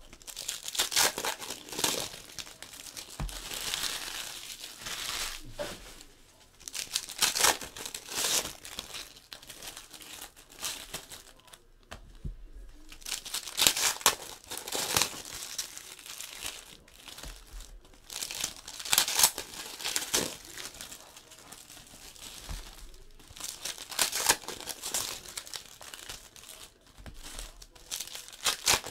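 Foil trading-card pack wrappers being torn open and crinkled by hand, in repeated bursts of crackling every second or two.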